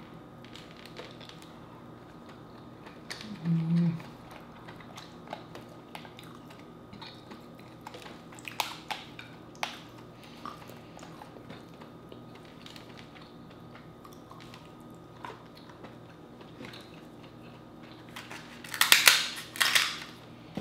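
Close-miked eating sounds: soft chewing of king crab meat with scattered mouth clicks and smacks, and a brief low 'mm' about three and a half seconds in. Near the end, several loud crunching snips as kitchen scissors cut through a king crab leg shell.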